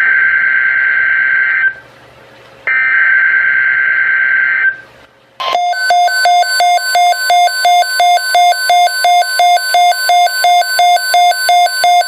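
NOAA Weather Radio alert signal. First, two bursts of harsh digital data screech about two seconds each: the SAME header that codes the alert for receivers. Then, about five seconds in, a loud pulsing electronic alert beep at about three beeps a second.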